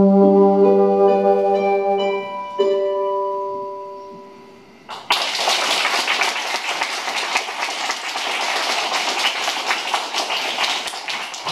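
Bassoon playing the last notes of a tune, ending on a held note that fades away. About five seconds in, a roomful of children bursts into steady clapping.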